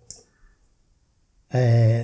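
A man's speaking voice: a pause of about a second and a half, then he starts speaking again near the end.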